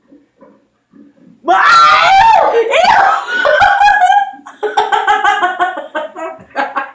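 High-pitched shrieking that starts suddenly about a second and a half in, then turns into choppy laughter until near the end.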